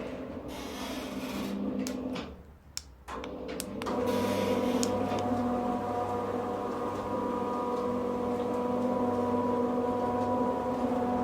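Electric roller garage door motor running with a steady hum. It stops about two seconds in, a couple of clicks are heard, and it runs again from about four seconds in.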